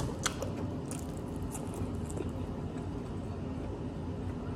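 A few light clicks of a metal fork handling a chicken tender in a paper takeout box in the first second and a half, over a steady low hum.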